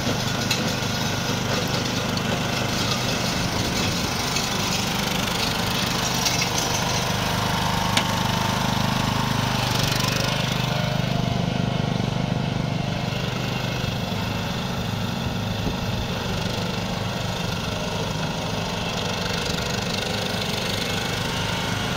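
Westwood ride-on lawnmower's engine running steadily while the mower is driven.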